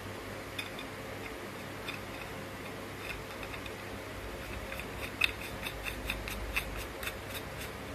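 3D-printed plastic nut being turned by hand on a matching printed threaded bolt, its threads giving light clicks: a few scattered at first, then a run of about four a second in the second half. A faint steady hum lies underneath.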